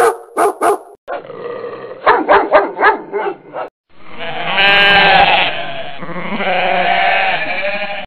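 A dog barking in a run of short, sharp barks, followed about four seconds in by a goat bleating in a long, quavering call that carries on to the end.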